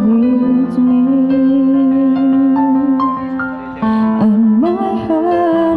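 Music: a melody of long held notes over accompaniment, with a rising slide in pitch a little after the middle.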